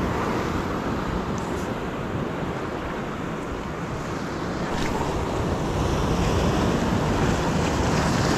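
Steady wash of ocean surf breaking against shoreline rocks.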